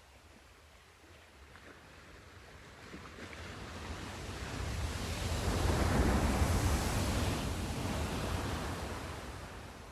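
Sea surf: one wave swells in, breaks about halfway through with a low rumble and hiss, then washes back out and fades.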